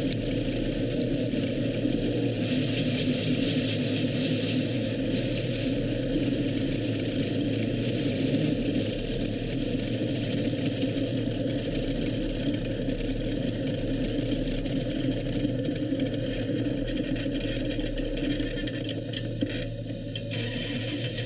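GM 602 crate small-block V8 of an IMCA Sport Modified running steadily at low speed, heard from inside the cockpit, with no revving.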